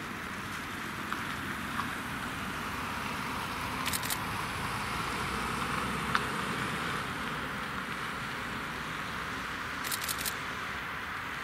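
Distant jet noise from a Bombardier CRJ-900's two rear-mounted GE CF34 turbofans as the airliner lands and rolls out: a steady rushing whine that swells slightly in the middle. A few short clicks come about four and ten seconds in.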